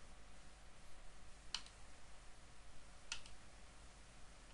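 Two faint computer mouse clicks, about a second and a half apart, over low hiss.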